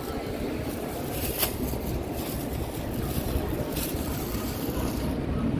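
Wind buffeting the microphone: an uneven low rumble, with a sharp click about one and a half seconds in.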